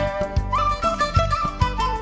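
Music with a steady beat and a melody that slides between notes.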